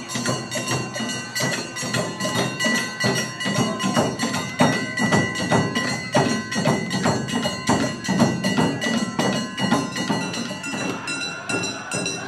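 Music with a steady percussion beat, about three strikes a second, under ringing sustained tones.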